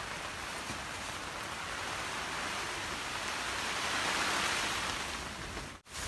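Steady rain falling on garden plants, a little louder about four seconds in, cutting out abruptly near the end.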